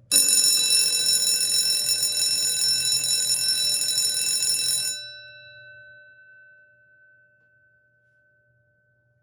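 Edwards Adaptabel fire alarm bell, powered by a 9-volt battery instead of its 12 volts, ringing continuously and loudly for about five seconds. It stops abruptly, and the gong rings on, fading out over about three seconds.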